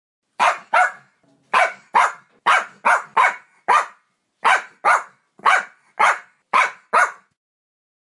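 A dog barking: a string of about fourteen short, sharp barks, roughly two a second, that stops shortly before the end.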